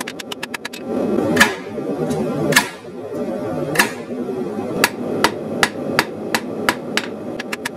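A hand hammer strikes red-hot rebar on a Hay Budden anvil, forging the hot steel. There are three heavy blows about a second apart, then a steadier run of lighter blows at about three a second.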